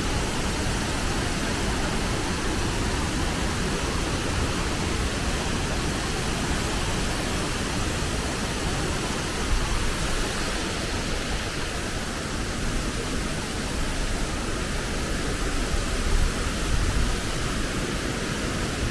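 Steady rush of a large waterfall, an even full-range hiss of falling water, with a couple of brief low bumps about halfway and near the end.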